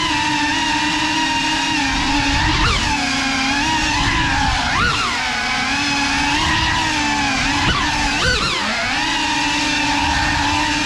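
Small FPV cinewhoop drone (GEPRC Cinelog 35) with ducted 3.5-inch propellers, its motors whining at a steady pitch. Three times the whine swoops sharply up and back down as the throttle is punched.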